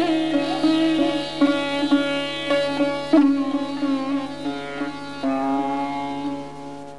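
Sitar played solo: plucked melody notes with sliding pitch bends over a steady drone. A last note, struck about five seconds in, rings on and fades away near the end.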